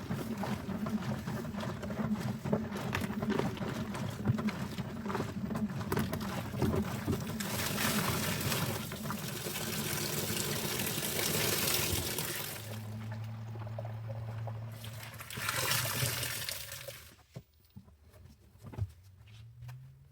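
Liquid pouring and splashing over a crackling fizz, loudest in a long spell in the middle and a shorter spell a few seconds later. A steady low hum sounds between the two spells.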